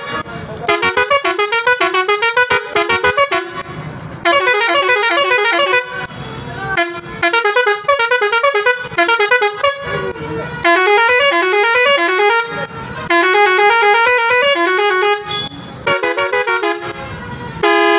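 Six-pipe Roots electric melody horn set played through its digital melody maker: fast runs of horn notes stepping up and down in tunes, in several phrases with short breaks between them.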